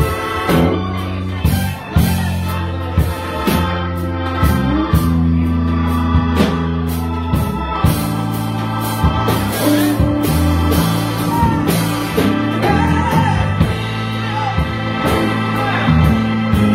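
Live blues band playing: a keyboard with an organ sound holds sustained chords over electric bass and steady drum hits.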